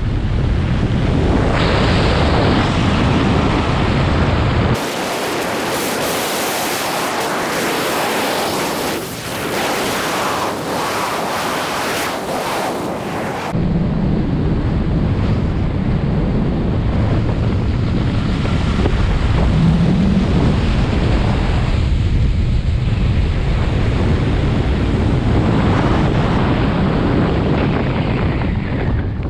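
Rushing wind buffeting the microphone during fast speedflying flight, a loud steady roar of air. For about nine seconds in the middle it turns thinner and hissier, with the low rumble gone.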